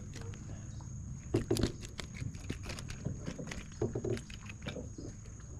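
Irregular clicks and light knocks of a fishing rod and reel being handled close to the microphone, over a low rumble.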